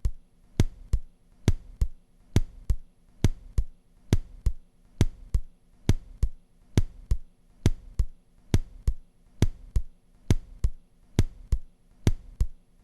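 Simulated normal heart sounds at the tricuspid area: steady paired "lub-dub" beats, a little over one a second, with the first heart sound of each pair louder than the second.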